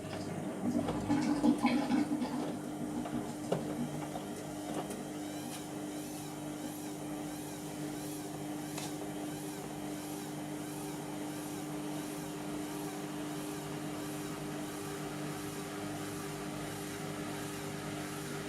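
Indesit MTWC71252WUK washing machine's drum motor running at a steady speed, with a steady hum. It is louder and more uneven in the first couple of seconds, then cuts off suddenly at the very end.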